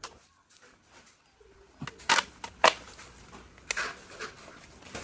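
Hand tools being handled: a few sharp clicks and light taps, two close together about two seconds in and a softer one near the end.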